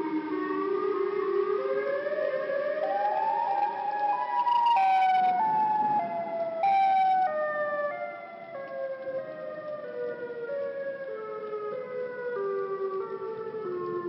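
Malfunctioning outdoor tornado warning siren wailing in several clashing tones at once. The pitch climbs in jerky steps for about five seconds, then steps back down unevenly, rather than gliding smoothly as a working siren does.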